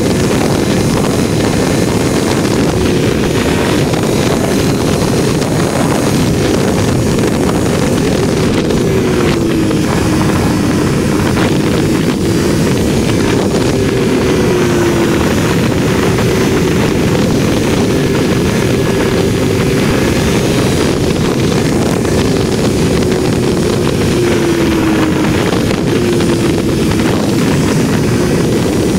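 Heavy wind rush on the microphone of a motorcycle riding at speed, over the steady running of a Triumph Tiger 1200's three-cylinder engine, its faint note dipping and rising a little a few times.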